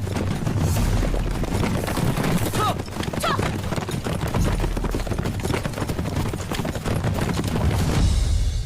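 Horses galloping: a dense, rapid clatter of hooves, with a few brief high cries about three seconds in.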